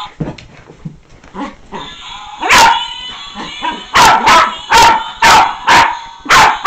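Small dog barking at a singing greeting card: one loud bark, then after a pause a quick run of about six barks.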